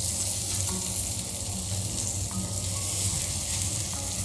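Oil sizzling steadily around coated surmai (kingfish) steaks shallow-frying in a pan over a medium flame, while the pieces are turned over with tongs.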